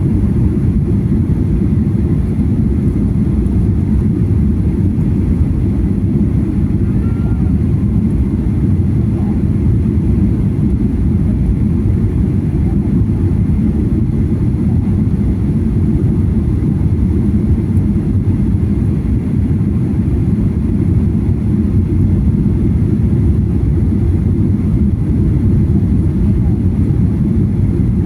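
Airliner cabin noise heard from a passenger seat: a steady, low rumble of engines and airflow during the descent to land.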